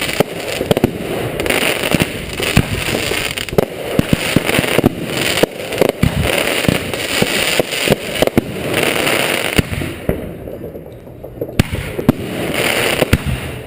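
Consumer fireworks going off in rapid succession: sharp bangs and pops of aerial shells over continuous crackling. The barrage eases for a couple of seconds about ten seconds in, then picks up again.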